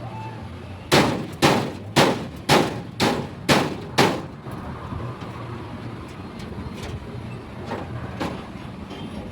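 Hammer striking metal: seven sharp blows about two a second, each ringing briefly, over a steady low hum.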